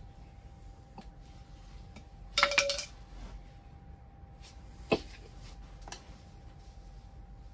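Steel tyre spoons clinking and ringing as they are set down on the concrete floor, a quick clatter about two and a half seconds in, followed by a single sharp metallic tap near the middle and a few faint clicks of the tyre being worked off a scooter hub motor.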